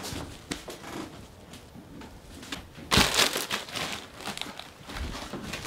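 Plastic potato-chip bag being handled and crumpled: scattered crinkly rustles, with a louder burst of crinkling about three seconds in.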